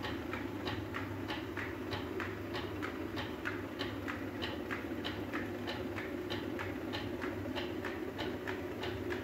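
Traditional stone flour mill running: the millstones grinding wheat with a steady rumble, over a rapid, even clacking of about three or four knocks a second.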